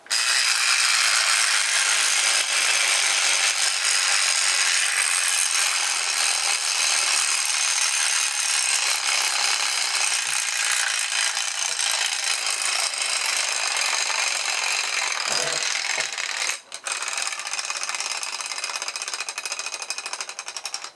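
Wound 3D-printed plastic clockwork motor running down: the spring drives the gear train and the escapement with its fork rattles very fast, a dense continuous clatter. It breaks off for a moment about sixteen seconds in, carries on a little quieter, then stops abruptly near the end.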